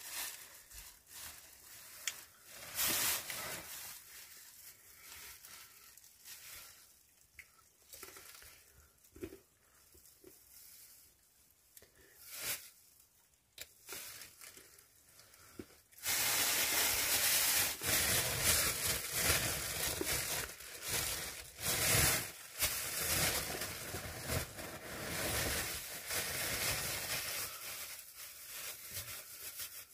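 Clear plastic bag crinkling and rustling as it is handled: scattered short rustles at first, then from about halfway a louder, continuous crackling.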